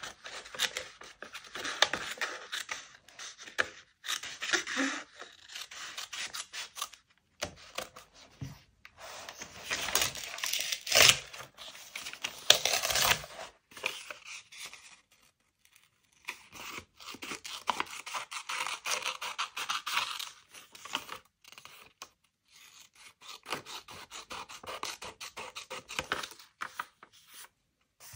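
Close-miked paper and stationery handling: paper scraping, rubbing and crackling in bursts of fine scratchy noise, with short pauses between them.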